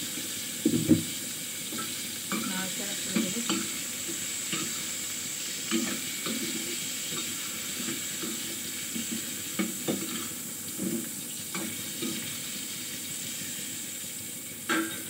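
Food sizzling in hot oil in a steel frying pan on high heat. A metal spatula scrapes and knocks against the pan at irregular intervals as the food is stirred, loudest about a second in and again near the end.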